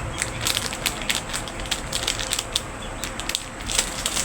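Plastic packaging crinkling and crackling as it is handled and unwrapped, in a quick, irregular run of small sharp crackles.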